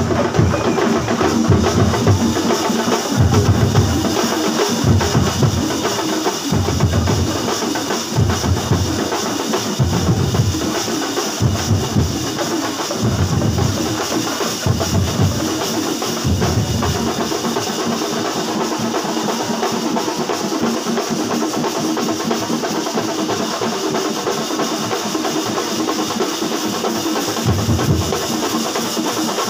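Loud drumming from a percussion ensemble, with heavy low beats coming thick and irregular for the first half, thinning out after about seventeen seconds.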